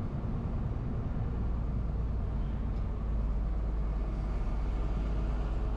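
Truck engine running steadily at low speed, heard from inside the cab as a low drone that grows a little louder about three seconds in as the truck pulls through the gate.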